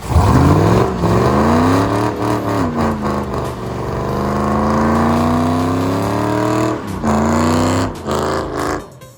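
Car engine accelerating hard through the gears. The engine note climbs, drops at a gear change about three seconds in and again about seven seconds in, then climbs again and cuts off shortly before the end.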